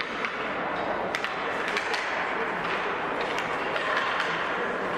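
Ice hockey play: several sharp clacks of sticks on the puck and ice over a steady scrape of skate blades on the ice.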